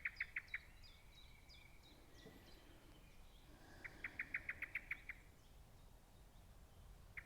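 A bird repeating a short, even trill of about eight rapid notes, once at the start and again about four seconds in. Another bird gives faint, higher, falling chirps during the first two seconds.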